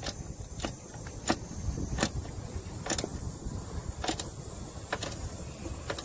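Socket ratchet clicking in single sharp clicks, roughly one every second, over a low rumble, as the lower locking bolt of the A/C compressor belt tensioner is tightened so the belt tension holds.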